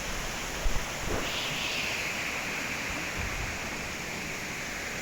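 Steady rushing outdoor noise with a brief low thump just under a second in; about a second in a higher hiss joins and stays.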